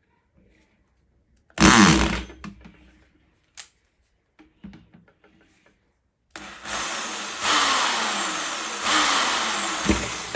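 Power drill drilling a hole through a ratcheting bar clamp's handle for the trigger's pivot bolt: a short run about a second and a half in, a few light clicks, then a steady run of about four seconds from around six seconds in, its whine sagging in pitch as the bit bites.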